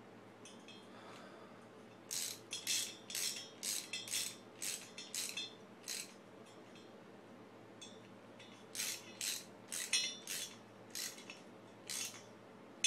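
Ratchet wrench clicking in short rapid bursts, about two a second, as the handle is swung back and forth on a fastener on a small motorbike engine's cylinder head. There are two runs of it with a pause of a couple of seconds in the middle.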